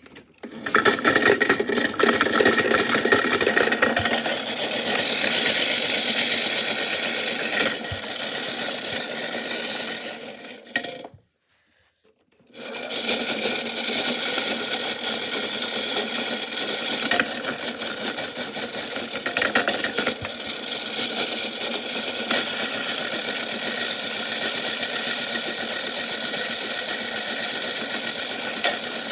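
Washing machine running with a big rock inside, a steady loud mechanical rattle. It drops out completely for about a second and a half near the middle, then resumes.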